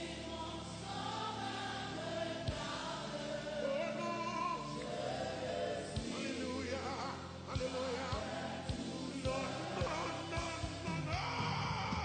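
Live gospel worship song: many voices singing together over a band with bass and drums. A regular drum beat comes in about halfway through.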